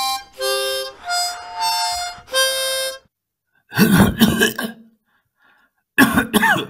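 A short harmonica tune of about four held notes, then two brief wordless vocal noises from a man's voice, one about four seconds in and one near the end.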